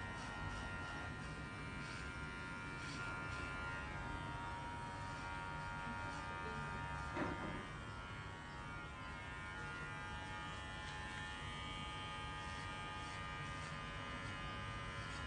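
Cordless electric hair clipper buzzing steadily as it cuts through hair close to the scalp during a head shave, with one brief knock about seven seconds in.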